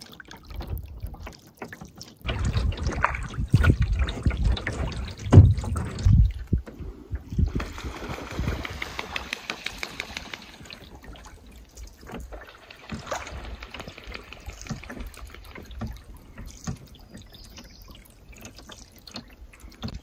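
Canoe being paddled across calm water: water trickling and dripping off the paddle and swishing along the hull with each stroke. A louder, rougher low rumble with a few knocks runs from about two to six seconds in, then it settles to soft drips and small ticks.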